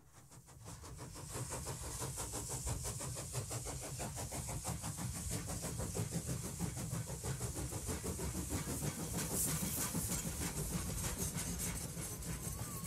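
Steam locomotive running with a hiss of steam, fading in over the first two seconds and then holding steady.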